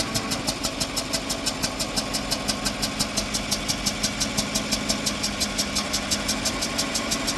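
Pickup engine, just replaced, idling with a rapid, even ticking of about six a second. Those listening take it for an exhaust leak.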